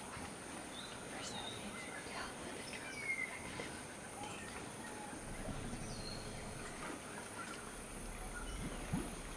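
Forest clearing ambience: scattered short bird chirps and whistles, including a falling whistle about three seconds in, over a steady high insect drone.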